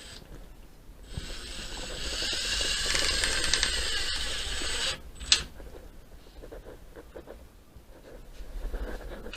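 A small power-tool motor runs for about four seconds, getting louder, then stops abruptly; a sharp click follows, then lighter knocks and handling sounds.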